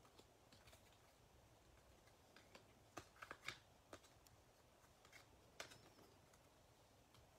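Faint rustling and clicking of trading cards being handled and sorted by hand, with a short cluster of clicks about three seconds in and another a couple of seconds later.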